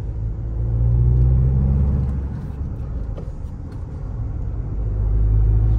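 Tata Safari's 2.0-litre turbo-diesel heard from inside the cabin, pulling in third gear under acceleration, with the light turbo whistle the owner likes. The engine note swells for about two seconds, eases, then swells again near the end.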